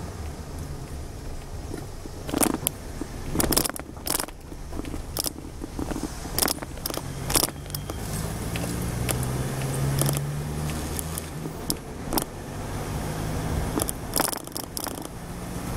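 A car driving along a road, heard from inside the cabin: a steady low engine and road rumble, with frequent sharp clicks and rattles over it.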